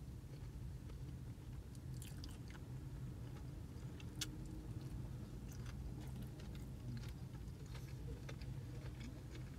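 A person biting and chewing takeout food close to the microphone, with a few short sharp clicks and crunches, the sharpest about four seconds in.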